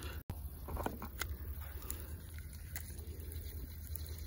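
Faint scattered clicks and light handling noise from a baitcasting rod and reel, over a steady low rumble.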